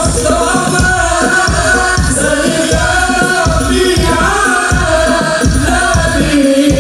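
Sholawat singing, a lead voice with a group, over steadily beating hadroh frame drums, played loud through a PA system.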